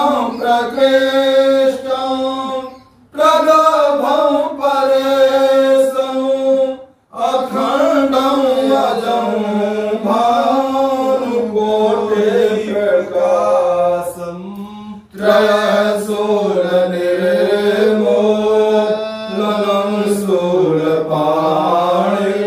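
A man chanting Sanskrit mantras for a Rudrabhishek in long held phrases, with a few short breaks for breath.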